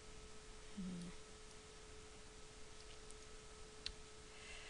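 Faint steady hum at one pitch in the recording's background, with a brief murmur about a second in and a single click near the end.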